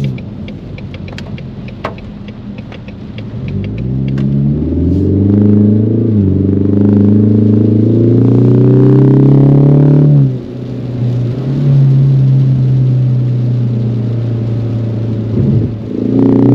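Ford Mustang engine pulling hard under acceleration: the revs climb, drop sharply at an upshift about six seconds in, and climb again. Around ten seconds in the driver lifts off, and the engine then runs steadily. A run of rapid light ticks sounds in the first few seconds.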